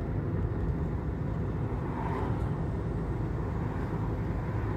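Steady low engine and road rumble inside the cabin of a small four-cylinder car driving along a town street.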